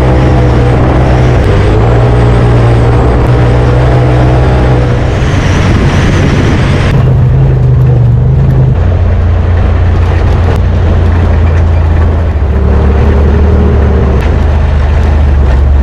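Polaris RZR Turbo S side-by-side's turbocharged twin-cylinder engine running hard at racing speed, with dense wind and chassis noise. The high hiss drops off suddenly about seven seconds in.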